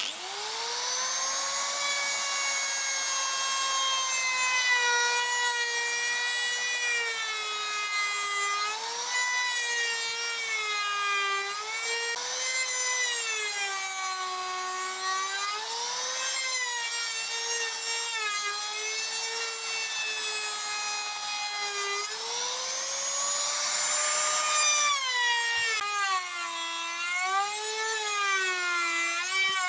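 Electric hand drill running continuously: it spins up at the start, then its whine sags and recovers in pitch again and again as the load changes while it works wood.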